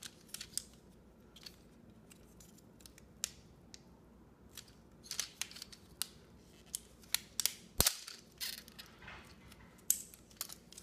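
Hard plastic parts of an HP PSC 1410 printer clicking, snapping and scraping as they are handled and pulled apart. There are many short irregular clicks, with one sharp crack about three-quarters of the way through.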